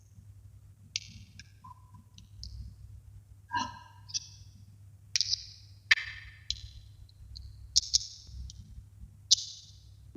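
Small neodymium magnetic balls snapping onto one another as a model is built up from them: about a dozen sharp clicks at irregular intervals, each with a brief high metallic ring.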